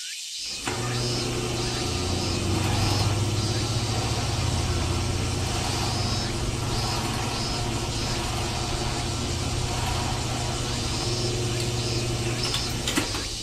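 A small motor running with a steady hum. It starts just under a second in, its pitch drops slightly about two seconds in and rises again shortly before it stops near the end, with a sharp click as it stops.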